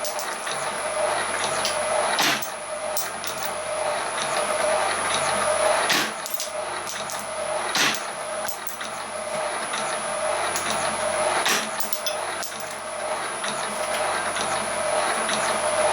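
Homebuilt crusher and can crusher/wire cutter running with a steady hum, with sharp irregular knocks every second or few as aluminium is fed through it.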